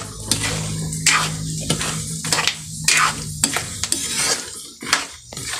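Peanuts being stirred and turned in a pan with a metal spatula: repeated scraping and rattling strokes, about two a second, as the salted peanuts cook.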